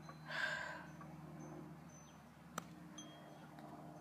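Quiet outdoor ambience: a faint steady low hum, with a brief rustle of noise about half a second in, a single sharp click about two and a half seconds in, and a few faint short high chirps.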